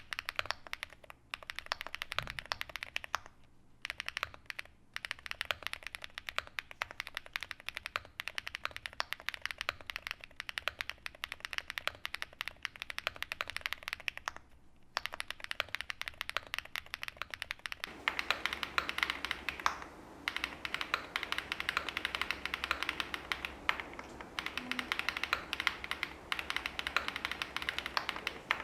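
Fast continuous typing on a custom mechanical keyboard with SW x Haimu MP Tactile switches (POM housings, UPE stem with metal pole tip), FR4 plate, full foam and DMK rubber keycaps, with dense key clicks and a few brief pauses. About two-thirds of the way in, the sound changes to the camera's own microphone, with a steady low hum and more background noise under the clicks.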